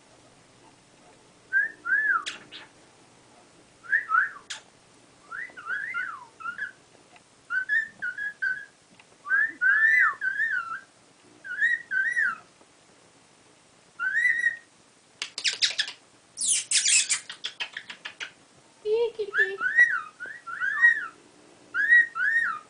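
Pet cockatiel whistling short phrases again and again, each a quick rise and fall in pitch like a wolf whistle, with short pauses between. A little past halfway comes a harsh, scratchy burst.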